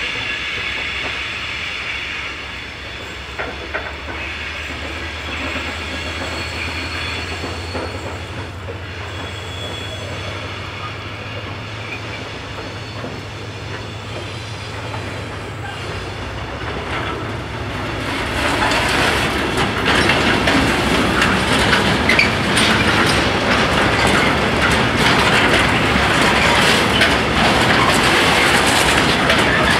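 Freight train passing a level crossing. A steady low hum builds as the train approaches. From about 18 s in comes the loud rolling rumble and clatter of freight hopper wagons running over the rails.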